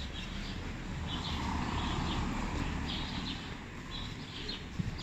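City street ambience: small birds in the street trees chirping again and again, over a low steady hum of traffic that swells and fades in the middle.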